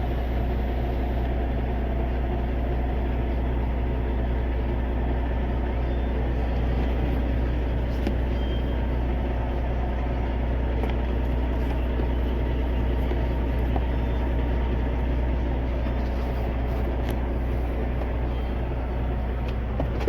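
Semi truck's diesel engine idling: a steady low hum that holds the same pitch throughout.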